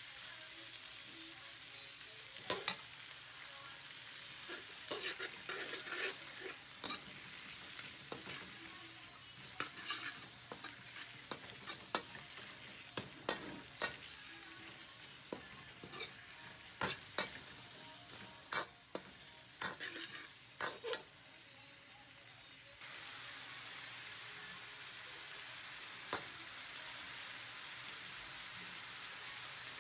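Whole shrimp and garlic sizzling in hot oil in a stainless steel wok, stirred with a metal ladle that clinks and scrapes against the pan. The stirring stops about two-thirds of the way through, leaving a steady sizzle.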